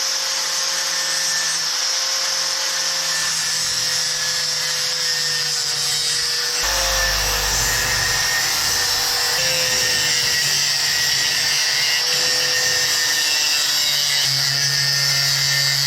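Angle grinder running at full speed with a steady high whine as it cuts through the thin old metal mesh of a fireplace spark guard. Its sound gets heavier and fuller about six and a half seconds in.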